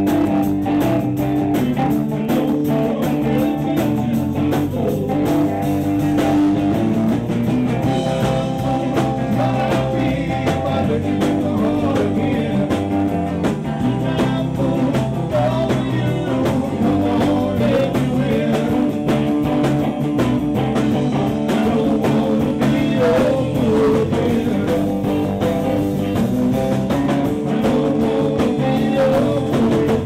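Blues band playing live: electric guitar, bass guitar and drums keeping a steady groove under a lead line.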